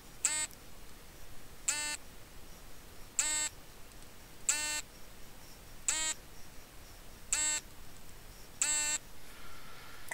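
An electronic beeper sounding seven short beeps at an even pace, about one every second and a quarter.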